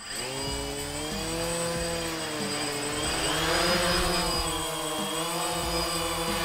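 DJI Phantom quadcopter's four electric motors and propellers spinning up and lifting off: a buzzing whine of several tones that shift in pitch, getting louder a few seconds in as the drone climbs, then settling to a steady hover hum.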